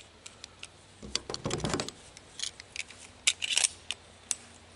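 Metal clicks and rattles of a pistol magazine being handled: a last .45 ACP round loaded and the magazine seated in an M1911A1 pistol, with the loudest cluster of clicks about three seconds in.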